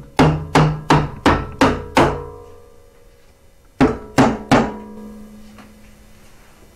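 Exhaust header on a Subaru STi engine being knocked onto its studs to seat it: six quick knocks about three a second, a pause of over a second, then three more, each leaving a metallic ring.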